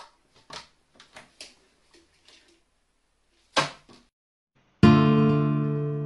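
Soft, scattered water splashes from a carrion crow bathing in a plastic tub, with one louder splash about three and a half seconds in. Near the end an acoustic guitar chord is strummed loudly and rings on as background music.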